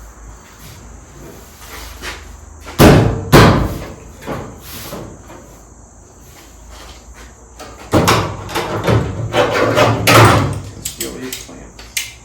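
Loud metal bangs on a car body: two sharp bangs about three seconds in, then a couple of seconds of knocking and clattering from about eight seconds in, with a few lighter clicks near the end.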